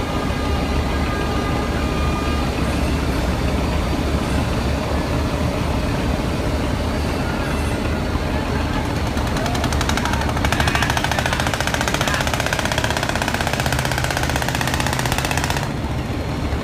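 Large river passenger launch's engine running with a steady low rumble over water churning in the propeller wash. From about ten seconds in a fast mechanical rattle joins and cuts off suddenly shortly before the end.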